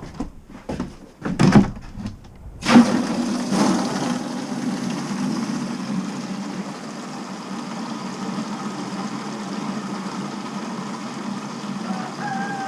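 A few knocks and thumps, then about three seconds in a steady machine hum starts abruptly and runs evenly, with a faint wavering whine near the end.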